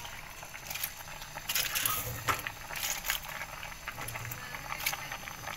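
Shredded cabbage rustling and crackling as handfuls are dropped into a steel stockpot of boiling chicken-foot soup, with the pot bubbling underneath and a few sharp clicks along the way.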